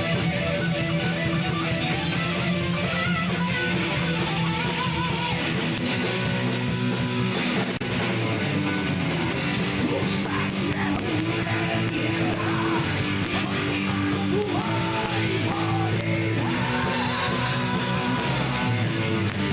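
A band's home-recorded demo song: strummed electric guitars over dense drums and cymbals, with a wavering melodic line on top.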